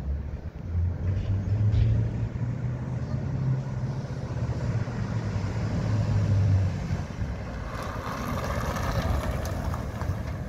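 1951 Ford F-1 pickup's engine running as the truck drives toward and past the listener: a low, steady exhaust drone that steps up in pitch about a second in and drops away after about seven seconds, followed by a higher, rushing noise as the truck goes by close.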